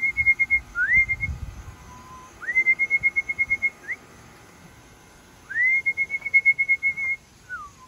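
A person whistling to call homing pigeons in to the loft. The call is repeated about five times, each a quick upward slide into a fast warbling trill held on one high note, the longest lasting over a second, with a short falling slide near the end.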